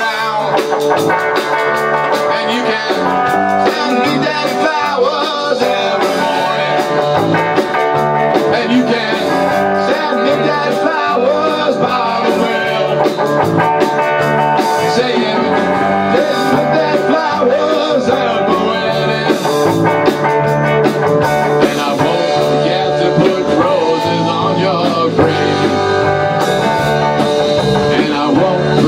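A rock band playing live in a small room: electric guitar over bass guitar and a drum kit.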